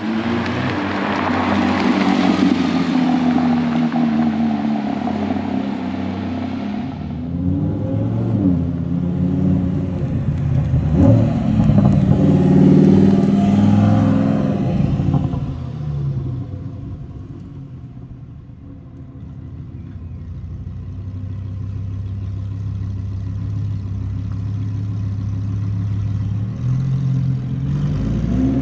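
Supercar engines revving and pulling away, mainly a Lamborghini Huracán Performante's V10: sharp rises and falls in revs, easing off briefly, then a steady drone that builds as the car accelerates.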